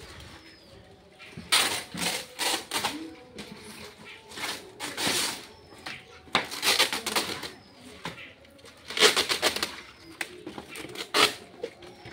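Handling noises: bursts of rapid clicks and rustling, in clusters a second or two apart.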